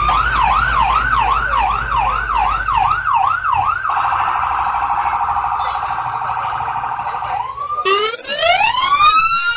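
Emergency vehicle siren changing modes. First a yelp of about two sweeps a second, then a rapid warble lasting about three and a half seconds, then a slower wail that winds up in pitch near the end.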